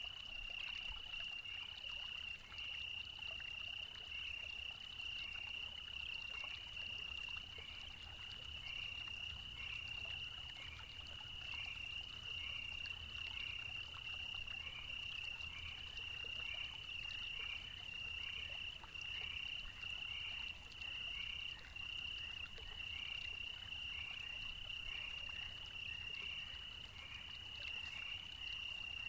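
A chorus of calling animals: a steady high trill, with a short falling chirp repeating about once a second.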